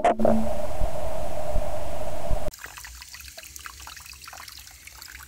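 Loud rumbling noise with a steady mid-pitched tone, heard through a homemade piezo-disc ground microphone set on the road surface above a leaking water main; it cuts off suddenly about two and a half seconds in. Then, much quieter, water trickling and splashing out of a burst pipe at a brass fitting.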